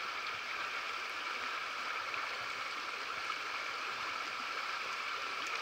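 Steady rushing of river rapids: even, unbroken white water.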